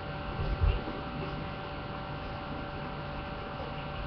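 Steady electrical hum with hiss, a few thin steady tones over a low noise floor, and a soft low bump a little over half a second in.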